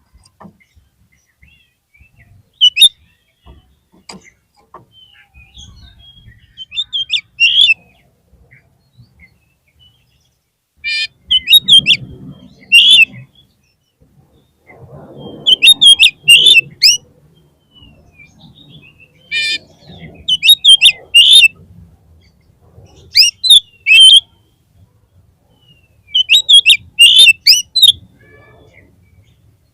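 Oriental magpie-robin (kacer) singing: short, loud bursts of sharp, varied whistled notes, repeated about every three to four seconds with brief pauses between.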